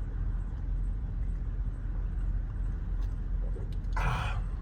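Steady low rumble, with a short hiss near the end as an energy-drink can is cracked open.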